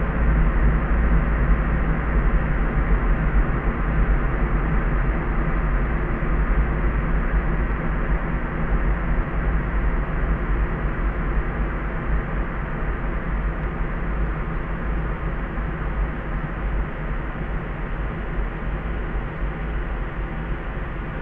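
Steady layered sleep noise: a deep, even hiss heaviest in the bass, with no high treble, easing very slightly in level.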